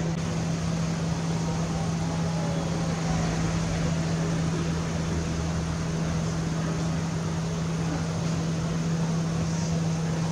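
A steady low machine hum over a constant hiss of background noise, unchanging throughout.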